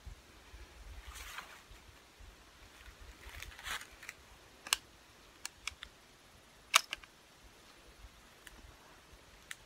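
Soft rustling, then a handful of sharp clicks close to the microphone, the loudest about seven seconds in: handling noise.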